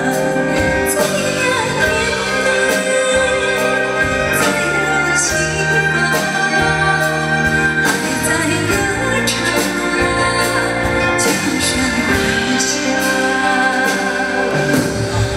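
A woman singing a Chinese pop song live into a handheld microphone over a full band backing, with steady drum and cymbal hits.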